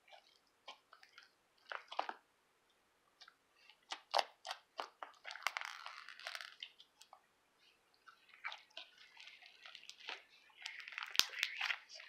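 Clicky slime being squeezed and pressed by hand, giving irregular clusters of sharp clicks and crackles, densest in the middle and near the end.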